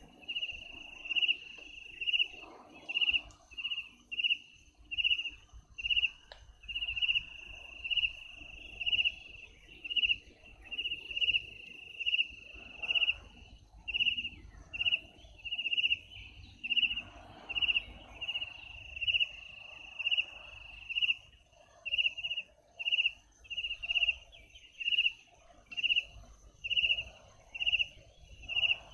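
A cricket chirping in the night, a high steady-pitched chirp repeated about once a second, now and then running on into a longer unbroken trill.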